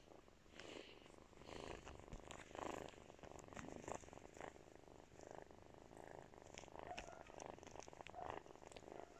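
A month-old kitten purring softly, close up, in slow swelling and fading pulses, with a few small clicks.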